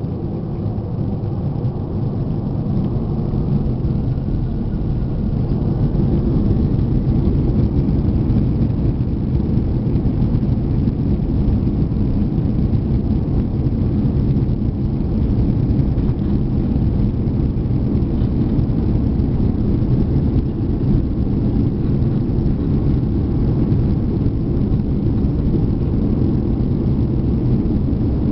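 Cabin noise of an Airbus A340-300 heard over the wing while taxiing: the steady low rumble of its four CFM56 engines and the airframe, growing louder over the first few seconds and then holding steady.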